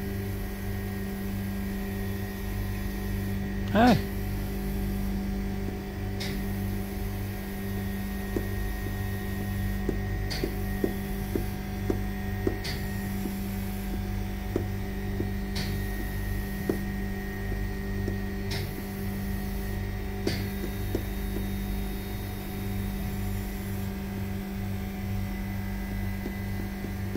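Steady machine hum with a strong low tone and a pulsing low drone underneath, from the climate test chamber and the lab equipment around it. Short clicks sound every few seconds as the chamber's touchscreen keypad is pressed, and a brief louder falling-pitch sound comes about four seconds in.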